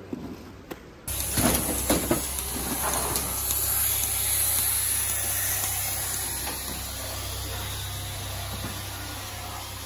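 Milking parlour machinery: a steady loud hiss of air over a low hum from the vacuum system, cutting in suddenly about a second in. A few knocks and clatters come from the milking clusters being handled just after it starts.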